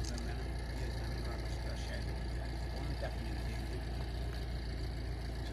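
Indistinct voices of a crowd of people over a steady low rumble.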